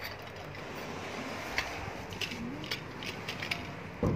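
Cat chewing chicken from a steel bowl: scattered small clicks and crunches, with one louder thump near the end.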